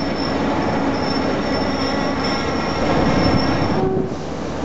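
Passenger train coaches rolling slowly past with a rumble, their wheels squealing in a thin, high, steady tone that stops about four seconds in.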